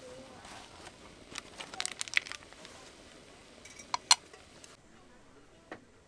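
A few light clicks and knocks: a cluster about two seconds in, then two sharp clicks about four seconds in, over faint background hiss.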